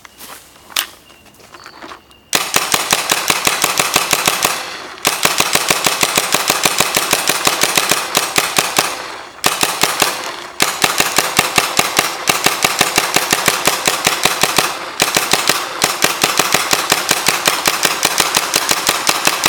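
Valken SW1 paintball marker, with its suppressor-style MP5 barrel, firing long strings of rapid shots. The firing starts about two seconds in and comes in four runs broken by brief pauses.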